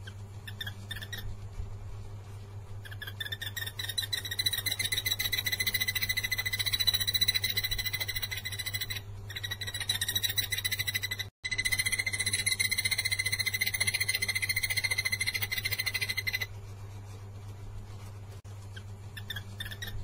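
A takur tenggeret (yellow-eared barbet) calls a long, fast trill pitched around 2 kHz. It starts about three seconds in, breaks off briefly twice, and stops a few seconds before the end. A low steady hum runs underneath.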